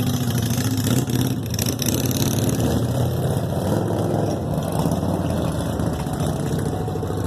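Harley-Davidson motorcycles' V-twin engines running, a steady low rumble.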